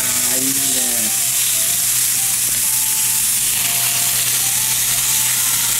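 Large slab of beef chuck searing in oil in a frying pan: a steady, loud sizzle. A voice is heard briefly in the first second.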